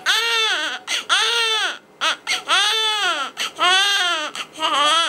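Newborn baby crying: five cries in a row, each under a second long, rising and then falling in pitch, with short breaths between.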